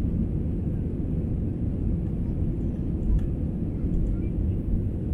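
Airbus A320-family airliner's jet engines heard from inside the cabin, a steady low rumble as the plane taxis along the runway before takeoff.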